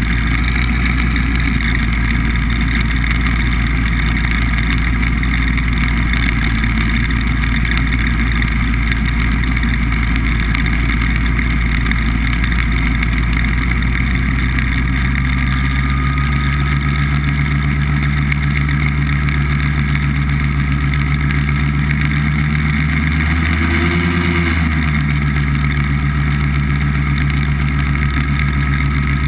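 BBV2+2 hovercraft's engine and lift/thrust fan running steadily under way over ice. The pitch rises and falls back once a little over twenty seconds in.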